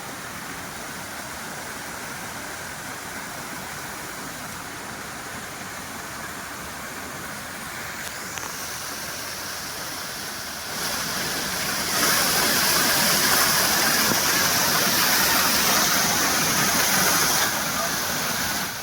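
Steady rush of flowing water at a natural swimming pool, growing clearly louder about 11 seconds in and dropping back suddenly near the end.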